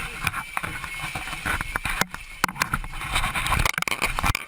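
Continuous rushing, rumbling noise with many sharp knocks and clatters, from inside a small plane flooding with seawater after ditching as passengers scramble for the exits.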